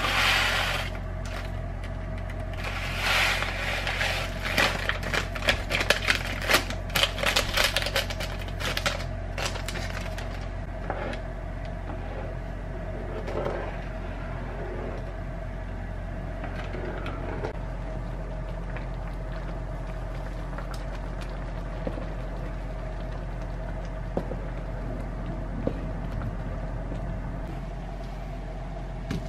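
Dry risotto mix poured from a pouch into water in a frying pan, then a wooden spatula stirring and scraping around the pan, a dense run of clicks and scrapes that thins to occasional light taps. A steady hum runs underneath.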